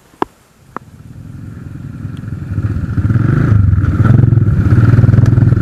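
Two sharp clicks, then a small motorcycle engine growing louder over about three seconds into a loud, steady run with a rapid pulsing beat.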